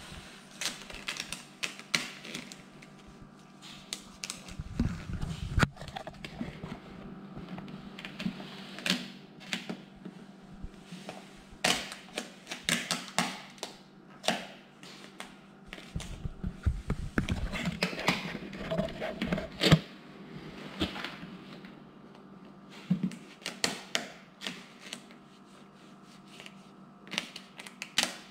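Irregular clicks and crinkles of vinyl tint film being stretched, pressed and tucked by hand around a car taillight lens, with a few dull thumps.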